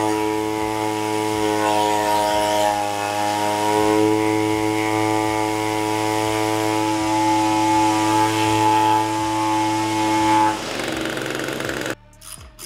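Echo 225 string trimmer's small two-stroke engine running steadily on its new carburetor and spark plug, its pitch wavering a little; it stops about ten and a half seconds in. Quick regular clicks follow right at the end.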